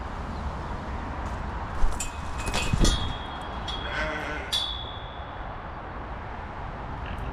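Wind rumbling on the microphone. About two seconds in and again near the middle come short jingles of small bells that ring on briefly, and a sheep bleats once.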